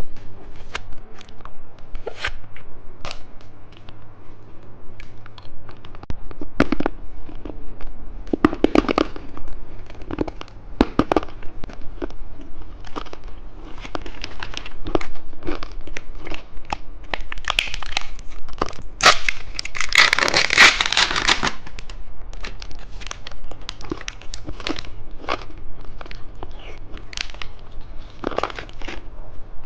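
Candy packaging crinkling and being torn open, with many short clicks and crackles close to the microphone. A louder stretch of dense crinkling and tearing comes about twenty seconds in.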